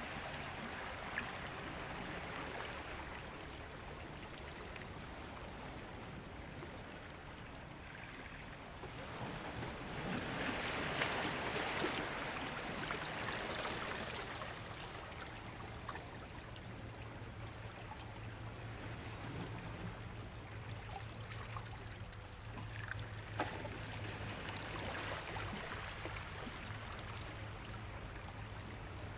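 Ocean waves washing on the shore, with one bigger wave swelling and breaking about ten seconds in. A faint low steady hum sits underneath from about halfway through.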